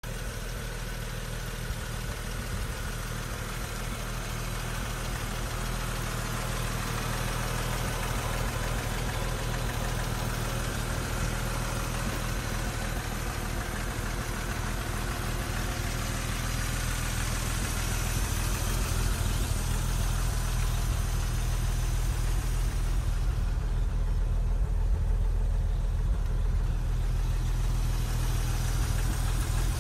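Bentley Mk VI Special's engine idling steadily through its standard exhaust system, getting a little louder in the second half.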